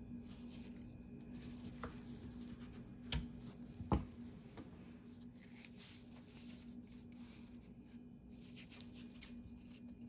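Hands handling laptop parts and a piece of packing foam: faint rustling and scraping, with two light knocks about three and four seconds in, over a steady low hum.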